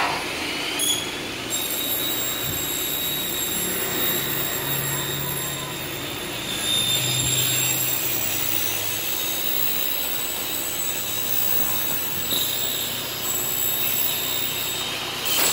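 Electric Maktec miter saw spinning up with a rising whine, then running steadily at full speed with a high whine while its blade cuts aluminium window-frame profile; it stops suddenly at the end.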